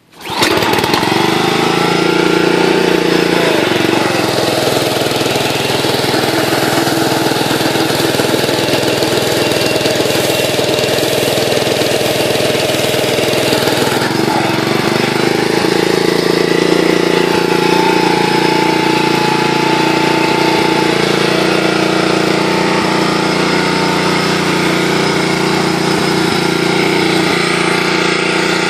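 Karcher 2400 psi pressure washer's 5 hp Honda four-stroke single-cylinder engine pull-started one-handed, catching at once and then running steadily at a constant speed.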